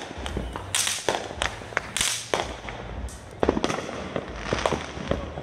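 Fireworks going off: a string of sharp bangs and pops at irregular intervals over a low rumble, with a dense cluster of bangs about three and a half seconds in.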